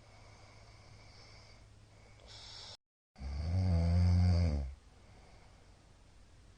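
A middle-aged man snoring: one loud, low buzzing snore lasting about a second and a half, a little past the middle. Just before it come a short hiss and a brief total dropout in the audio.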